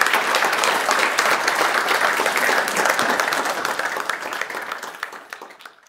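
Audience applauding: dense clapping from many hands that fades away over the last couple of seconds.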